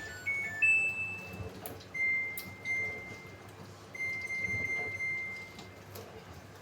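Samsung AddWash washing machine's control panel beeping: a quick run of short electronic notes at different pitches, then two long steady beeps about two seconds apart.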